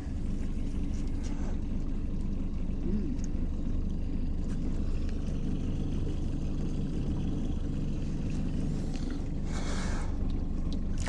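Fishing boat's motor running steadily with a low, even hum, a couple of faint clicks and a short hiss about ten seconds in.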